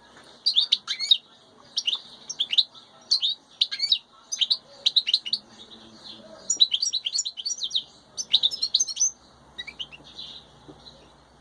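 European goldfinch singing: bursts of quick, high twittering notes in phrases a second or two long with short pauses between, falling to a few faint notes near the end.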